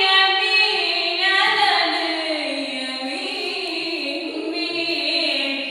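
A woman singing solo in Arabic, with long held notes that slide and waver in pitch.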